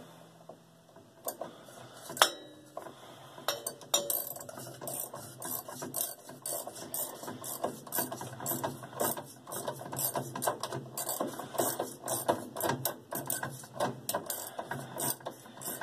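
Socket ratchet clicking as it drives the center bolt down inside a Whirlpool top-load washer's agitator. A few single clicks come first, then from about three seconds in a steady run of several clicks a second.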